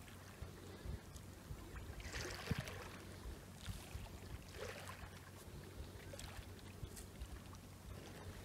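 Faint washing of small sea waves at the shoreline, with a steady low hum underneath. The wash swells softly about two seconds in and again about four and a half seconds in.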